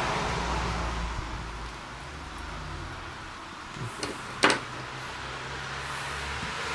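Wireless grill thermometer and its probe cables being handled on a wooden table, with one sharp knock about four and a half seconds in and a smaller one just before it. A steady hiss and low hum run underneath.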